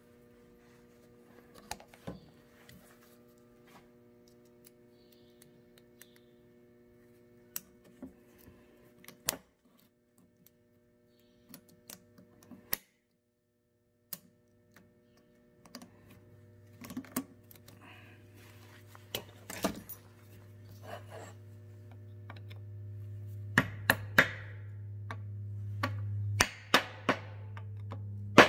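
Scattered metallic clicks, taps and knocks of hand tools and driveshaft parts being handled while a universal joint is fitted into its yoke. About halfway through, a steady low hum starts and grows louder, and a few sharp metal strikes stand out near the end.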